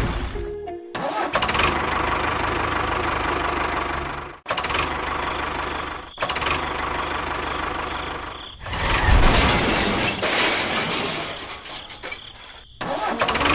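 A small engine running steadily, heard in several short clips joined by abrupt cuts, with a louder stretch about nine seconds in. Background music plays along with it.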